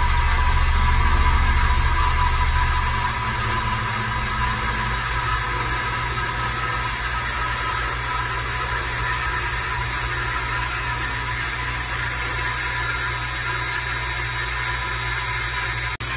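Husky HKJ10 electric water pump running with a steady motor hum as it pressurises the system under its newly fitted pressure switch.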